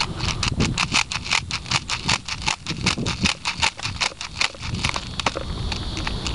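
Airsoft gun firing a rapid string of shots, about seven or eight sharp cracks a second, stopping about three-quarters of the way through.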